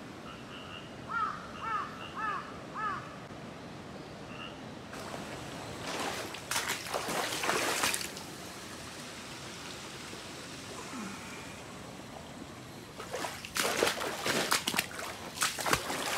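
A crow cawing four times in quick succession about a second in. Then, around six seconds in and again from about thirteen seconds on, louder splashing footsteps through shallow floodwater and mud.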